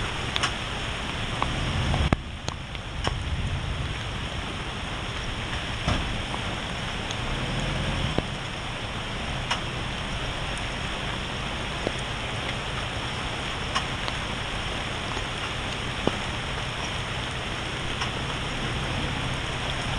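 Steady rain hissing on the jungle canopy, with scattered drops ticking on the camera. A low vehicle rumble rises now and then.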